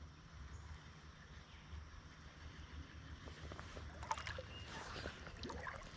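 Faint sloshing and light splashing of shallow river water, with a steady low rumble under it. Scattered small clicks and splashes come in the second half.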